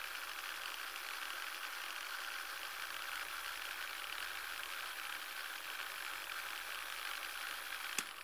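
A steady hiss of noise with no pitch or rhythm, ending in a single sharp click near the end as it cuts off.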